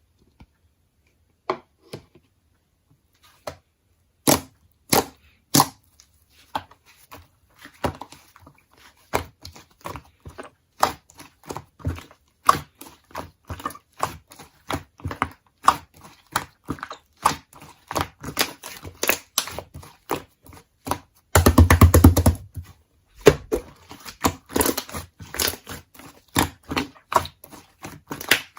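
Slime being squeezed and pressed by hand, making a run of short clicks and pops. They are sparse at first and come thick and fast later, with a dense crackling stretch about three-quarters of the way through.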